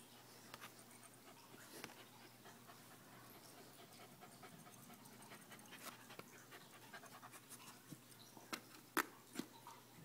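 A dog in labour panting faintly, with a few sharper clicks near the end.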